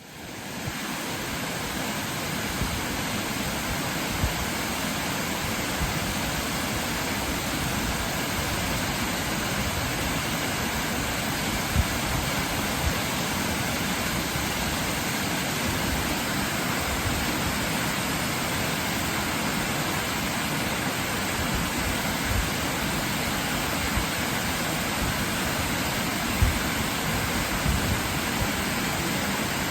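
Waterfall rushing: a steady, even roar of falling water that fades in over the first second.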